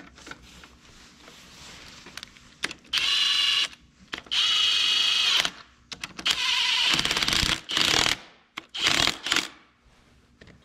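Four loud hissing bursts of spray or blown air, each from under a second to nearly two seconds long, with a faint whistle in the hiss.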